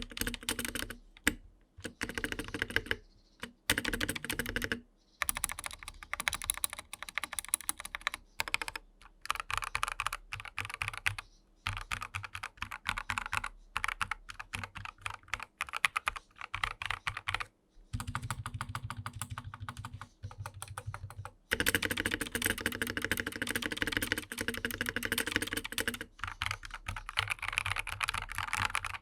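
Typing sound test on a modded Dareu A87 hot-swap mechanical keyboard, its stock silicone swapped for EVA bottom foam and plate foam under SP Star Polaris Grey switches: fast runs of keystrokes in bursts with short pauses.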